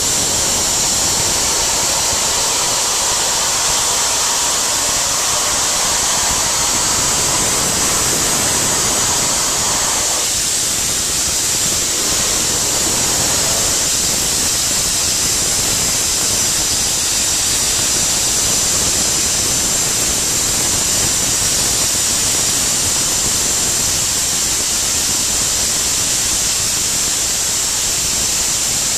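Soda blaster nozzle blasting baking soda with compressed air: a steady, loud, high hiss. A faint whine under it stops about ten seconds in.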